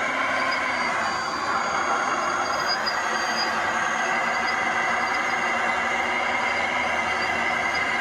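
Radio-controlled model wheel loader running over dirt: a steady mechanical whine from its drive and hydraulics, the pitch sliding up and down between about one and three seconds in.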